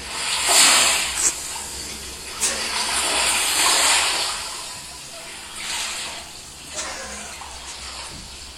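Water splashing and rushing in two loud swells in the first half, with a few sharp clicks, then fading to a lower rushing noise.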